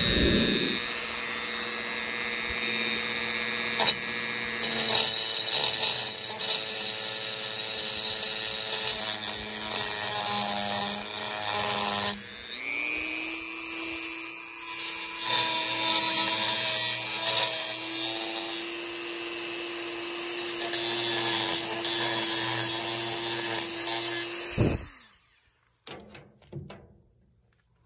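Handheld rotary tool with a small grinding-stone bit running at high speed, grinding the rusty steel flange of an antique electrical bulkhead receptacle. Its whine shifts in pitch about halfway through and cuts off near the end.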